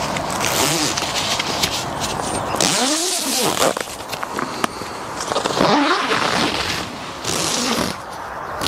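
Bivvy fabric rustling and swishing as the mosquito-mesh infill panel is handled and pulled into place across the front, with small clicks among the rustle.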